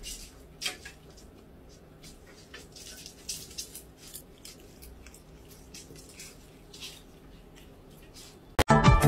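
A tabby cat chewing a green leaf close to the microphone: soft, irregular clicks and small crunches over faint room noise. Loud music starts suddenly near the end.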